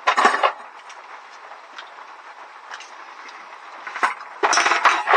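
Plates and cutlery clinking and clattering: one short burst at the start and a denser run of clicks in the last second. Under it runs a steady hiss of rain on the camper roof.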